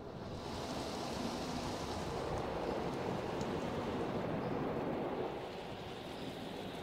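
Spray jets of a Tammermatic T700 rollover car wash dousing the car, heard from inside the cabin as a steady rushing hiss of water on the body and glass. It swells during the first second and eases off near the end as the spray passes.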